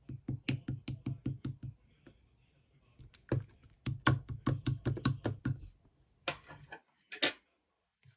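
Slime being pressed and worked by hand, making quick runs of sharp clicks and pops, about five or six a second, with a few louder crackles near the end.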